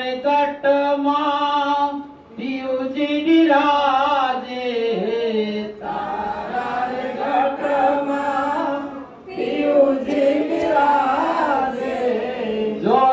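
A Gujarati devotional bhajan being sung, the voice drawing out the melody in long held, gliding notes with brief breaths between phrases.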